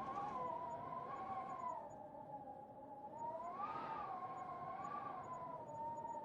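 Winter storm wind howling: a wavering, whistle-like moan that rises and falls slowly and swells about four seconds in, over a low rush.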